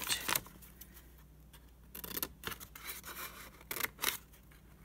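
Scissors snipping a sheet of paper and the paper rustling as it is handled: a handful of short, crisp snips and rustles scattered through, with the sharpest pair near the end.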